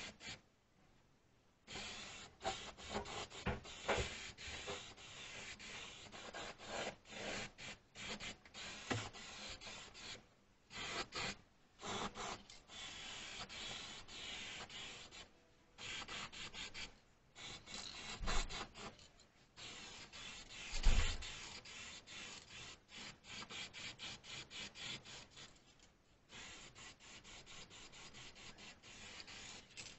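Aerosol spray paint can hissing in many short bursts and a few longer passes as paint is sprayed onto a metal toolbox. A low thump about two-thirds of the way through is the loudest sound.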